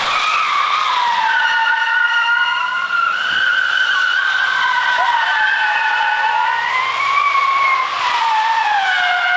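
Saturn car's tyres squealing in one long, continuous drift, the squeal wavering up and down in pitch as the car slides.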